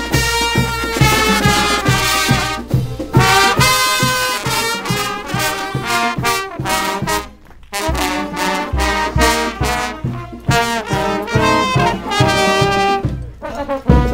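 Brass pep band playing an up-tempo tune: trumpets, trombones and saxophones over a steady drum beat, with a short break about halfway through.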